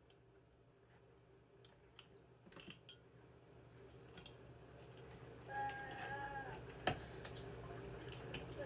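Faint, scattered light clicks and taps of fingers and long nails pressing puff pastry into small metal pie tins on a cutting board, with a brief faint tone about six seconds in.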